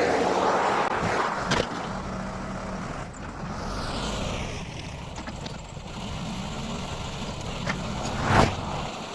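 A motor vehicle engine running steadily, with a sharp click about a second and a half in and a loud clank a little after eight seconds.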